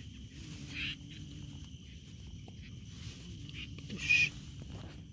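Steady night chorus of insects over a low drone, with two short high squeaky calls, a weaker one about a second in and the loudest near the end.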